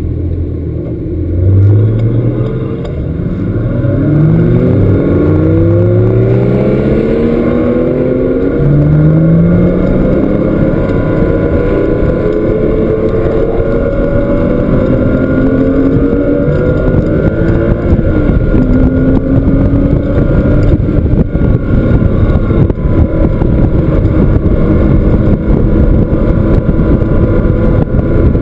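Porsche flat-six engine at full throttle on a race track, pulling up through the gears. The pitch climbs and drops back at each of several upshifts, over steady road and wind noise.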